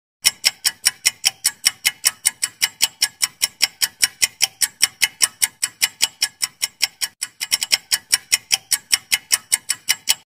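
Quiz-timer clock-ticking sound effect, fast, even ticks at about five a second, with a brief hitch in the rhythm a little past seven seconds.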